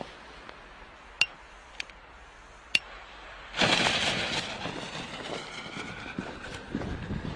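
Consumer firework mortar being set off. Three sharp clicks come first, then about three and a half seconds in a sudden loud hissing rush that fades away over the next few seconds, with low thumps near the end.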